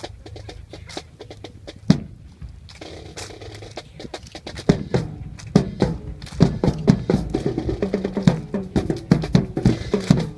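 Sharp percussive strikes, a few scattered at first, then a fast, fairly steady drum-like rhythm from about five seconds in.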